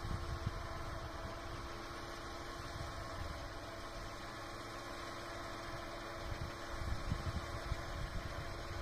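ATV engine running with its winch pulling the cable in, a steady hum over a low rumble, as the machine is hauled out of deep slush. It gets somewhat louder with low knocks in the last couple of seconds.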